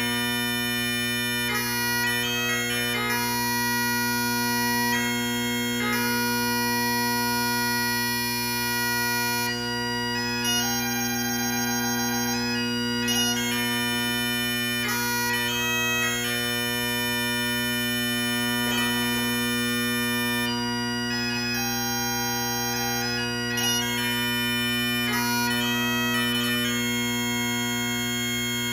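Bagpipes playing a tune: a melody moves above low drones that hold without a break throughout.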